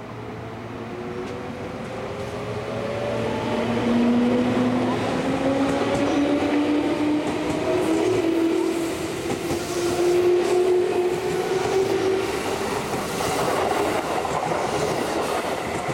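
JR West 221 series electric train pulling away from a station. Its traction motors whine in several tones that climb steadily in pitch as it gathers speed, over wheel and rail rolling noise that builds in the first few seconds and then holds.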